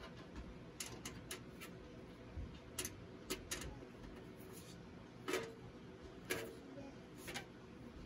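Screwdriver tightening brass motherboard standoffs in a steel PC case: faint scattered metal clicks and ticks, a quick run of them about a second in, then single ticks roughly a second apart.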